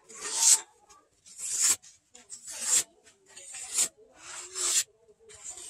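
A handmade billhook's sharpened blade slicing through a sheet of paper in a sharpness test, about one stroke a second. Each stroke is a rising hiss that stops sharply.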